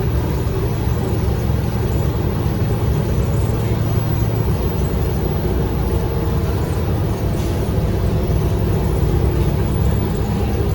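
Inside a transit bus's cabin: the bus running with a steady low rumble and hum from its engine and drivetrain.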